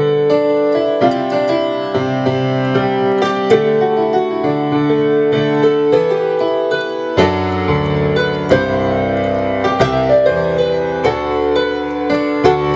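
Digital keyboard in a piano voice playing held chords under a melody; deeper bass notes come in about seven seconds in.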